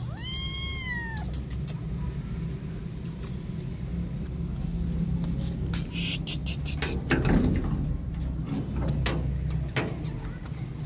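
A kitten stuck in a wire-mesh gate meows once at the start, a call of about a second that rises and then falls in pitch. Scattered clicks and scuffs follow over a steady low rumble.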